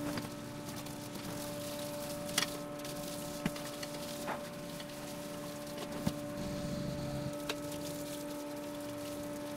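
A steady low hum with a few faint clicks and knocks.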